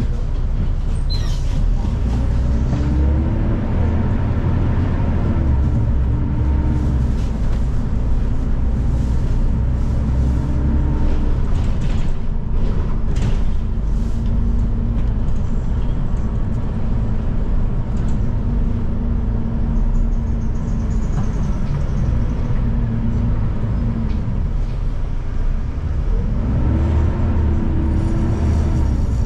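City bus engine and drivetrain heard from the rear seat inside the cabin: a steady low rumble, with a whine that rises and falls as the bus pulls away and slows, a few seconds in and again near the end.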